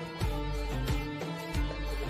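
Background music with a steady beat, about one low beat every two-thirds of a second under held instrumental notes.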